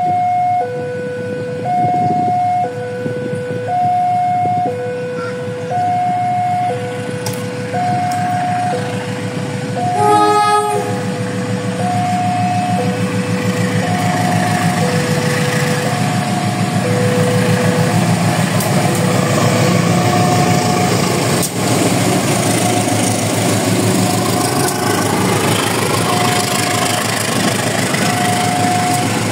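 Railway level-crossing warning alarm sounding a steady two-tone ding-dong, high and low alternating about once a second. A train horn blows briefly about ten seconds in. Then the rumble and wheel noise of a passing train builds up and runs under the alarm.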